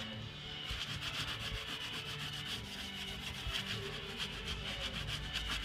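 Damp non-scratch scrubby sponge rubbing back and forth with a marble-flour cleaning paste, scouring off baked-on sticker residue in quick, even scrubbing strokes that pick up about a second in.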